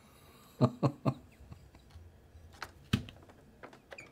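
A man laughing: three quick chuckles about half a second in, followed by a couple of faint clicks and a breath near the end.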